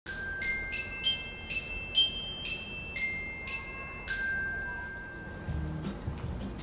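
A short musical intro jingle of bright struck bell tones, glockenspiel-like, playing a quick melody of single notes. The last note rings on and fades away about halfway through.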